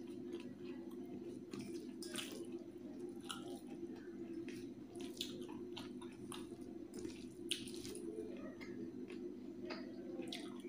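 Fingers mixing rice with thin chicken curry in a steel plate: irregular wet squishing and soft clicks. A steady low hum runs underneath.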